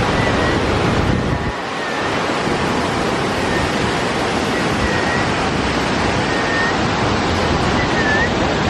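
Waterfall rushing: a loud, steady noise of falling water. A faint short high chirp repeats about every second and a half over it.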